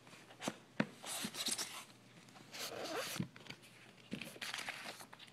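Hands digging through foam packing peanuts and pulling a white foam case out of a cardboard shipping box: rustling and scraping in short bursts, with a few sharp knocks.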